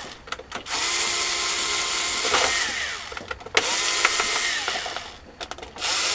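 Cordless drill backing screws out of a cheap keyboard's plastic case, running in three bursts of a second or two each, its motor whine rising as it spins up and falling as it stops. Short clicks come in the pauses between bursts.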